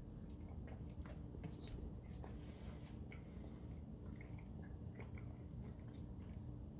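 A person faintly chewing a mouthful of burrito, with small, irregular wet smacks and clicks of the mouth.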